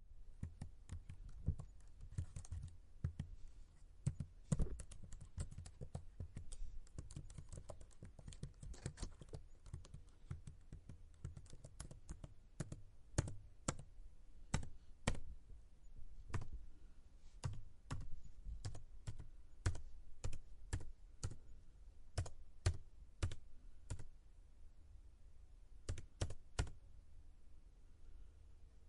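Computer keyboard typed on slowly: separate key clicks at an uneven pace, a few a second, thicker in the first half and more spaced out later.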